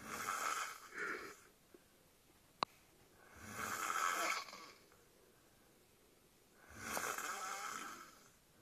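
Slow, raspy snoring, three snores about three seconds apart. A single sharp click comes about two and a half seconds in.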